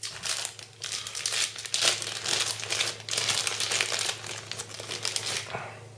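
Thin clear plastic packaging bag crinkling as hands handle it and rummage in the box, in irregular crackly bursts that die down about five and a half seconds in.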